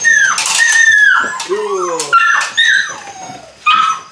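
Eight-week-old Belgian Malinois puppy yelping and whining, a run of high calls that drop sharply in pitch, with a few sharp clicks between them.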